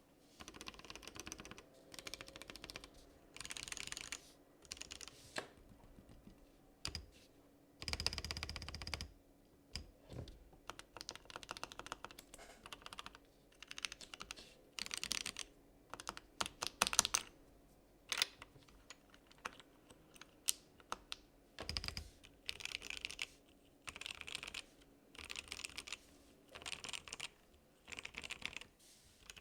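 Typing on a KBDcraft Lilith custom mechanical keyboard with Wuque Studio WS Morandi linear switches, with spring-lubed springs, and a ceramic space bar. Quick runs of keystroke clacks lasting about a second each alternate with short pauses, and a couple of strokes land deeper and heavier.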